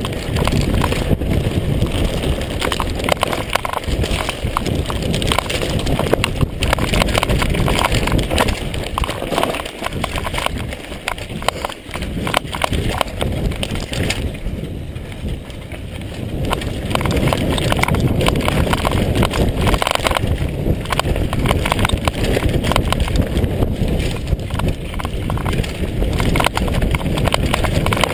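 Downhill mountain bike (Mondraker Kaiser) descending a rough dirt trail at speed: the frame and parts rattle and clatter continuously over the bumps, over the rush of tyres on dirt and gravel. The noise eases briefly around halfway, then picks up again.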